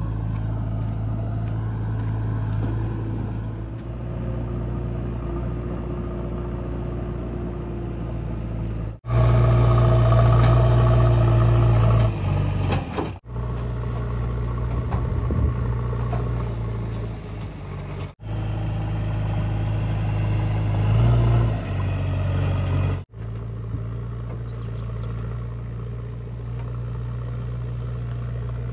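JCB 3DX backhoe loader's diesel engine running steadily as the machine drives, louder for about three seconds near the middle, with a few brief dropouts.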